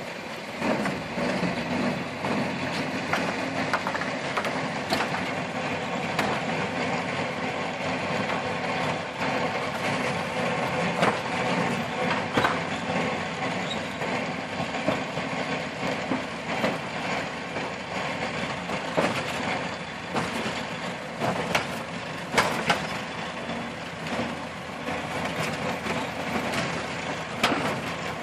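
Ford Model T's four-cylinder engine running as the car rolls over the loose wooden deck planks of a suspension bridge. The boards rattle and knock irregularly under the tyres.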